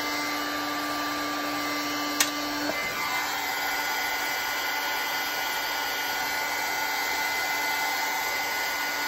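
Craft heat gun running steadily, blowing hot air onto wet watercolour paper, a steady rushing noise with a thin motor whine. A single click about two seconds in, and the whine changes slightly about a second later.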